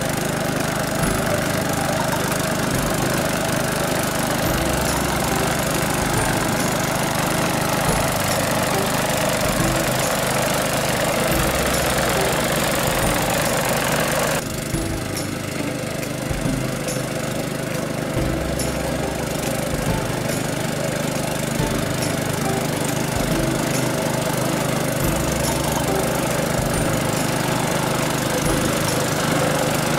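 A walk-behind sickle bar grass mower's 7 hp engine runs steadily while the mower cuts tall grass. The tone shifts abruptly about halfway through, the upper hiss dropping away.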